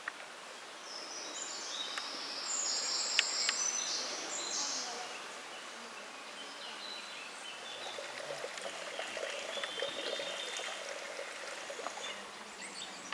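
Woodland ambience: a steady soft hiss with birds singing, a high bright phrase from about a second in lasting a few seconds and fainter chirps later.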